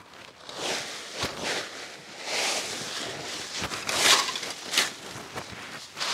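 A rake dragged through a thick layer of dry fallen leaves, rustling and crunching in repeated strokes about once a second.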